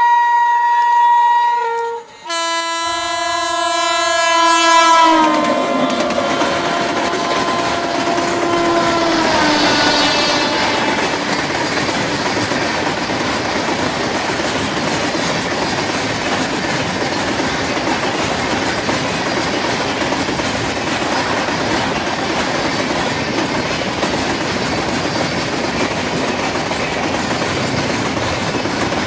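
Diesel locomotive horn sounding two multi-note blasts, the second one sliding lower in pitch as the train passes. A long freight train then runs past, its wheels clattering steadily on the rails.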